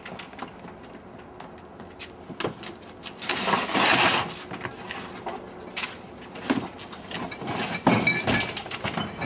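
Plastic recycling bin being handled: a loud rustle and clatter about three to four seconds in as items are pushed into it, then scattered knocks and scrapes as the bin is tipped and dragged.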